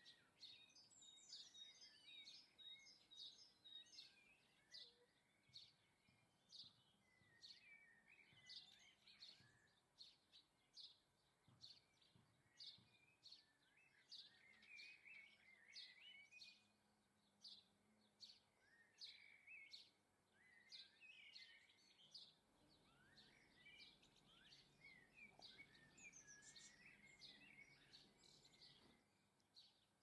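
Faint garden birdsong: a steady run of short high chirps, about two a second, mixed with twittering phrases from several small songbirds.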